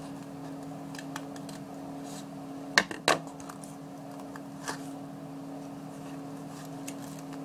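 Small clicks and rustles of scissors and cardboard being handled, with two sharp clacks close together about three seconds in as the metal scissors are set down on the wooden table, over a steady low hum.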